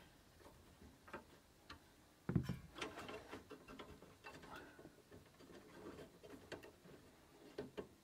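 Faint small clicks and taps of hand work on the fridge's gas burner: a screwdriver driving the burner's retaining screw and metal fittings being handled, with a dull knock about two seconds in.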